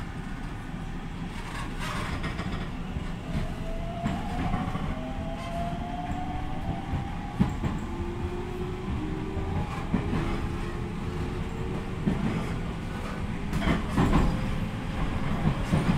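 JR Central 313 series electric train heard from inside the passenger car, accelerating: the traction motors' whine rises steadily in pitch over a low running rumble, with a few sharp clacks of the wheels over rail joints.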